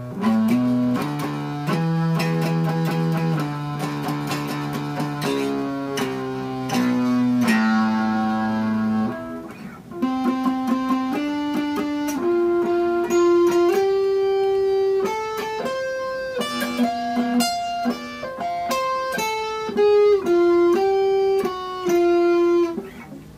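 Electric guitar played through a breadboarded distortion circuit whose clipping stage is a stack of silicon and germanium diodes pointing each way, with less volume than the previous setting. Two-note chords for the first half, then after a short pause about ten seconds in, a single-note melodic line.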